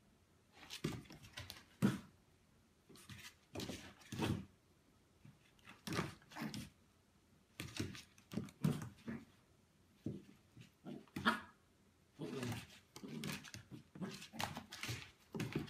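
Small shaggy dog playing: a run of short, irregular grunts, huffs and scuffles, coming roughly once or twice a second, fairly quiet.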